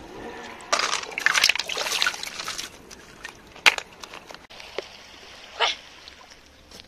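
Shallow rock-pool water sloshing and splashing as a hand moves a seashell through it, strongest in the first half, followed by a single sharp click about halfway through.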